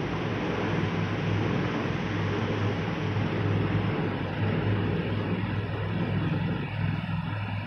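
Steady mechanical drone: a constant low hum over an even hiss, with no distinct knocks or handling sounds standing out.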